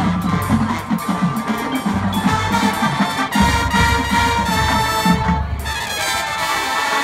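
Marching band playing: brass holding chords over repeated bass drum hits and percussion.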